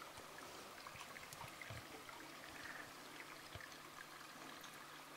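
Faint steady hiss with a low hum under it and a few small scattered ticks: quiet background noise.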